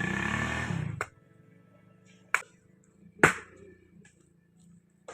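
Background music that cuts off abruptly about a second in, then two sharp, separate knocks about a second apart, the second louder.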